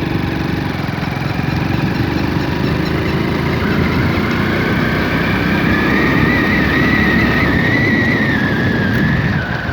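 Motorcycle engine running steadily under way. From about four seconds in a high whine rises, holds, and falls away near the end.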